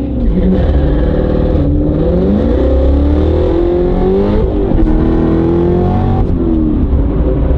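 Supercharged V8 of a C7 Corvette ZR1 with an aftermarket exhaust, accelerating hard through the gears. The engine note climbs and drops back at three upshifts.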